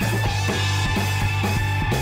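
Upbeat rock background music with electric guitar, bass and a steady drum beat.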